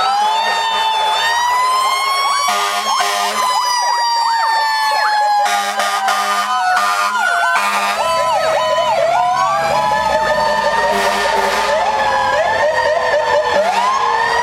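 Sirens of several passing fire engines and a police car sound at once, overlapping slow rising-and-falling wails and fast yelps. Repeated loud blasts cut through them about two to three seconds in and again from about five and a half to eight seconds in.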